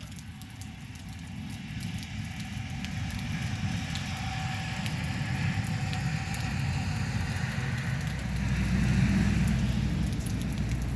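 Steady rain with scattered sharp drips, under a low rumble that swells and is loudest about nine seconds in.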